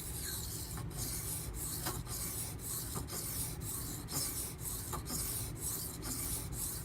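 Knife blade stroked back and forth on a Naniwa Professional 400-grit water stone, a steady rasping hiss of steel on wet abrasive broken at each stroke reversal, about two strokes a second.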